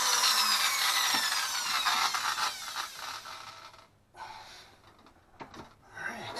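Power tool running with a whine that falls in pitch, cutting off suddenly about four seconds in; a few faint knocks follow.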